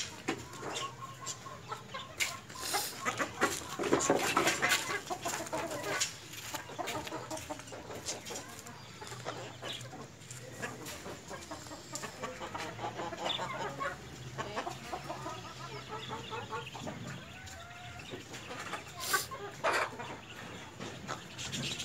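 White Leghorn chickens clucking while they peck at chopped greens on concrete, with many short sharp pecking taps among the calls. The taps are busiest and loudest a few seconds in.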